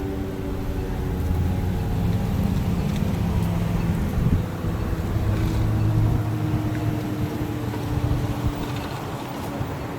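Outdoor warning siren tone, low-pitched and faint, dying away in the first second or two and coming back faintly for a few seconds later on, under a louder steady low rumble of wind and traffic.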